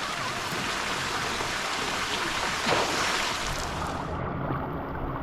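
Steady rushing and splashing of water in a hot-spring pool; about four seconds in the sound suddenly turns duller as its hiss loses its top end.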